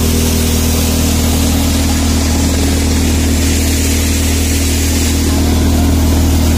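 Tractor-powered wheat thresher running steadily under load, a constant drone of the tractor engine and the thresher's drum, with the rush of straw and chaff being blown out.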